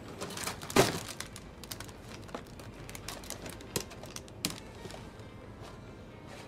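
A plastic shopping basket set down on a shop counter with a knock about a second in, then scattered clicks, knocks and rustles as packaged goods are taken out of it at the register.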